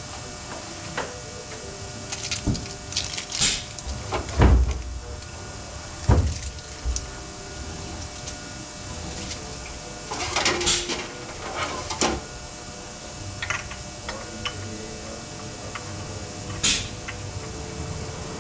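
Scattered metallic clanks, knocks and a few short hisses from tools and parts being handled in a quick-lube oil-change pit, over a steady hum.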